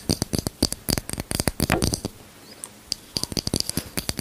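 Long fingernails tapping rapidly on a clear plastic lip balm tube, a quick run of crisp clicks that breaks off for about a second midway and then resumes.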